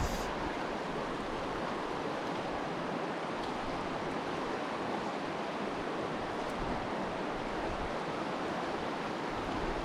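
Steady rushing of a mountain creek's flowing water.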